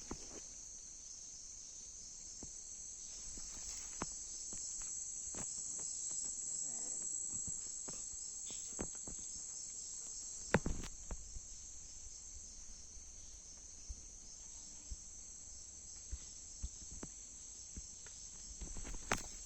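Steady high-pitched insect chorus, with scattered light clicks and knocks and one louder knock about ten seconds in.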